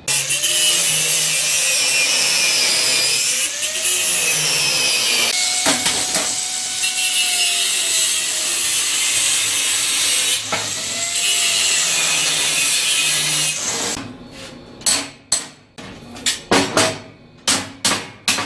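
Handheld angle grinder cutting into a steel cart frame: a loud, continuous grinding hiss with a whine that dips and rises as the disc bites. It stops about fourteen seconds in, followed by a rapid series of sharp hammer blows on the metal frame.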